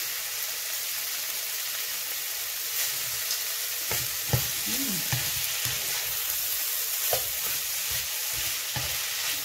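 Goat meat and pepper sauce frying in oil in a pan, with a steady sizzle. A spoon stirring through it gives scattered clicks against the pan, the sharpest a little after four seconds in.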